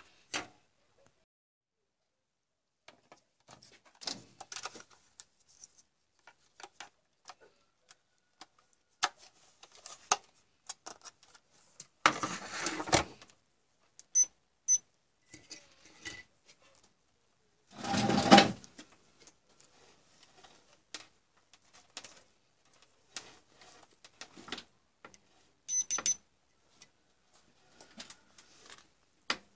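Handling noises on a workbench: a circuit board, tools and multimeter probe leads being picked up, moved and set down, with scattered light clicks and knocks. The loudest is a brief clatter about 18 seconds in, and there are a few short high pips.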